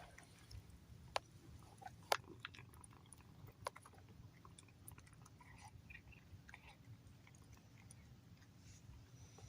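A cat eating, with faint irregular chewing and crunching and a few sharper clicks in the first few seconds.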